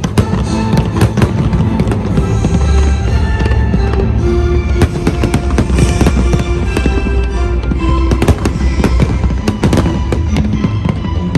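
Fireworks display: shells bursting one after another with many sharp bangs and crackles, over music with long held notes.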